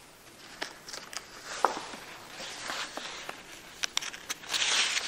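Paper rustling with scattered light clicks and taps as notes are handled. A louder stretch of rustling comes near the end.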